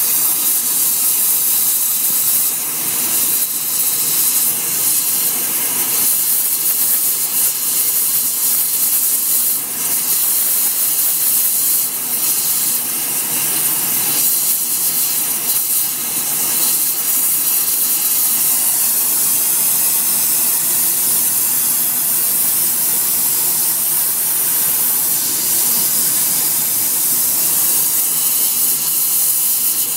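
Gas brazing torch flame hissing steadily while it holds a steel hammer red-hot for brazing hardfacing cord onto its edges.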